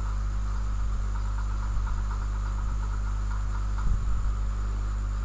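Steady electrical mains hum with hiss, picked up by the recording setup, with faint rapid insect-like chirping in short runs and a couple of soft low thumps about four seconds in.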